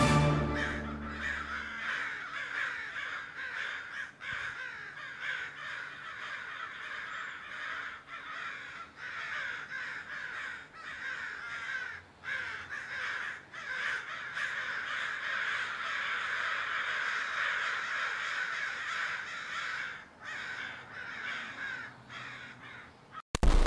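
A large flock of crow-family birds calling continuously, many calls overlapping. Music fades out in the first couple of seconds, and a short loud hit sounds near the end.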